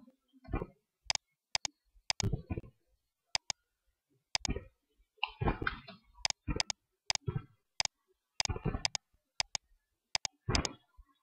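Computer mouse buttons and keyboard keys clicking irregularly, a dozen or more sharp clicks, while vertices are shift-click selected.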